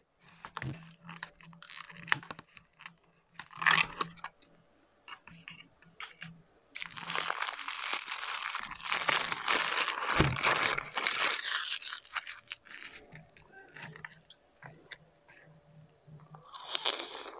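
Close-up eating sounds: crisp food being crunched and handled, with scattered clicks and taps and a dense stretch of crunching about five seconds long in the middle.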